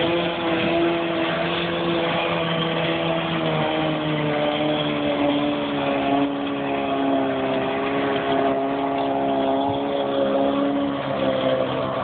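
Restored 1953 Mercury Mark 15 two-stroke outboard running at full throttle, a steady engine note whose pitch sinks slowly as the boat draws away.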